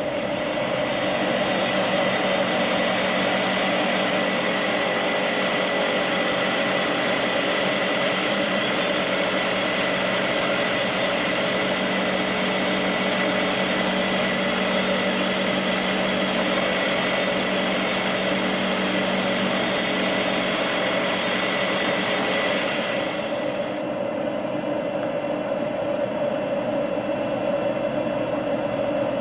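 Electric rotary hammer drill boring into concrete with a carbide bit, running steadily. Near the end the sound thins and softens for a few seconds before coming back.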